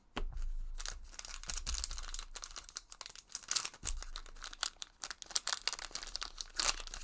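Foil trading-card booster pack wrapper being crinkled and torn open by hand: a dense run of sharp crackles and rips, with low handling bumps.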